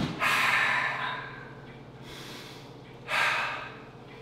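A man breathing hard, winded just after an overhead log press: a long forceful exhale just after the start, then another heavy breath about three seconds in.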